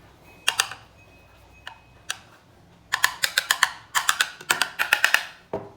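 A run of sharp clicks and taps from hard objects: a few single clicks, then quick clusters of about five a second in the second half, ending with a duller knock.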